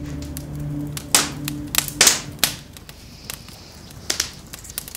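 Wood fire crackling, with irregular sharp pops and snaps from the burning logs.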